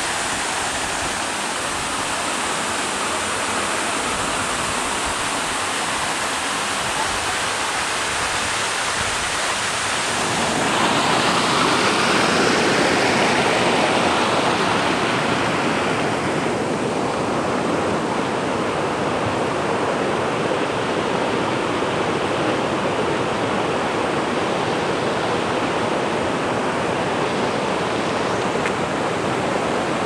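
Waterfall and its rocky stream rushing steadily, with no break, growing louder for a few seconds from about ten seconds in.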